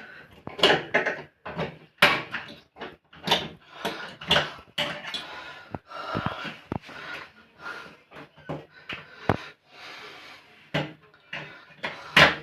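A run of irregular knocks, clicks and scraping rustles, handling noises of hands working at the jammed plastic drain filter at the bottom of a washing machine. The sharpest knocks come about two seconds in, near six and nine seconds, and just before the end.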